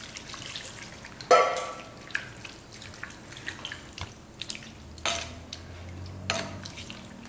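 Water poured into a clay pot of chicken pieces. About a second in comes a sharp, ringing clank, and after it a slotted steel ladle knocks and scrapes against the pot every second or so as the wet chicken is stirred.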